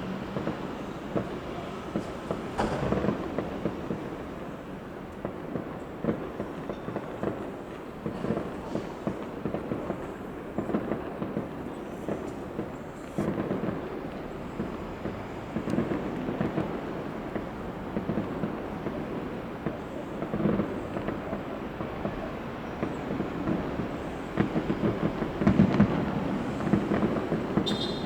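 Fireworks display going off without a break: a dense run of bangs and crackles over a low rumble, getting louder near the end.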